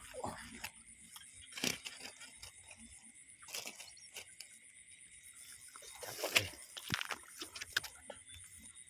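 Scattered rustles, clicks and light splashes from someone wading and handling gear in a flooded rice field, with a cluster of louder ones about six to seven seconds in, over a steady high-pitched background chorus.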